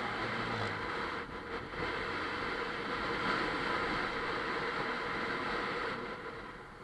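Bajaj Pulsar 150 single-cylinder motorcycle engine running on the move, mixed with steady wind rush on the riding camera's microphone; the sound eases off about six seconds in.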